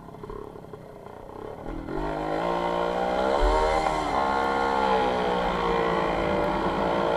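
WSK 125 motorcycle's two-stroke single-cylinder engine under way. It is low and quiet for about the first two seconds, then revs up hard, its pitch climbing, dipping briefly and rising again as the throttle is worked.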